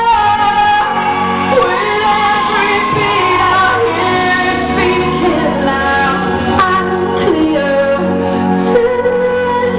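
Live band music with a singer singing, heard from the audience through a camera microphone, dull and lacking its highs.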